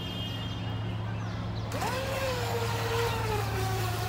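A radio-controlled model boat's motor whining as it throttles up sharply about two seconds in, then holding speed with its pitch slowly sagging. A hiss of spray comes in with it, over a steady low hum.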